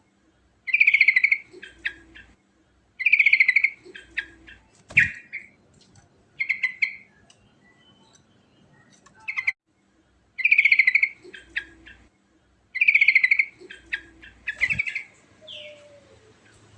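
Yellow-vented bulbul (trucukan) singing: four loud phrases, each a fast rattling run coming in two pairs, with shorter chattering notes between them and a couple of sharp clicks.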